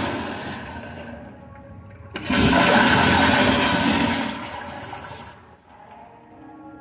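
Commercial flush-valve toilets flushing. The rush of one flush fades out over the first second. A second loud flush starts suddenly about two seconds in and dies away over the next three seconds.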